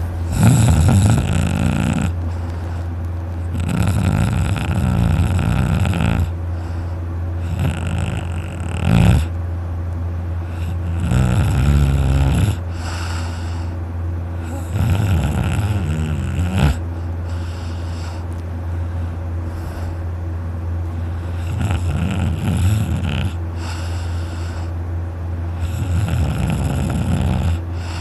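A young man snoring very loudly in deep sleep. There are about seven snores, each a second or two long, coming every few seconds with some longer pauses between them.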